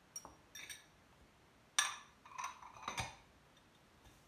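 A small glass dish and a ceramic bowl clinking as black olives are taken from the dish and dropped into the bowl: a handful of short sharp clinks and taps, the loudest a little under two seconds in.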